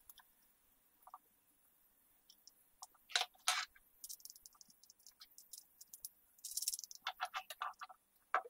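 Faint clicks and rattles of small metal angle-grinder parts and a screwdriver being handled during reassembly: two sharper knocks about three seconds in, a run of fine quick ticks, then a cluster of clicks and one sharp click near the end.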